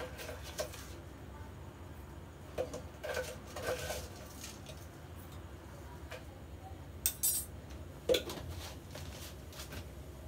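Light, scattered clinks and taps of a spoon and small containers against a stainless steel pot while chocolate powder is spooned into milk, with a few sharper clinks after about seven seconds, over a low steady hum.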